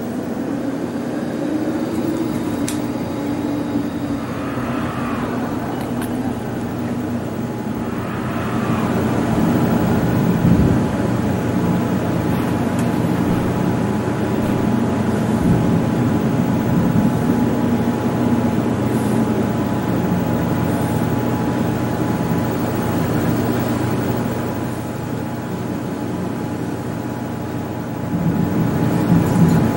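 Strong wind roaring over the microphone in the gusts ahead of a large tornado: a steady rumbling rush that grows louder about eight seconds in.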